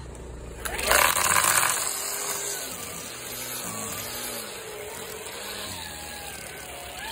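String trimmer fitted with a homemade wheeled mower attachment, starting up with a loud burst about a second in, then running steadily with a wavering pitch.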